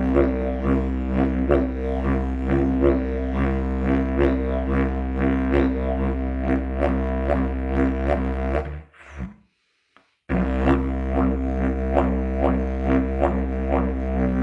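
Didgeridoo in B, made by Paco Moreno, played as a very low steady drone with rhythmic pulses. It stops just before 9 seconds in and starts again about a second and a half later.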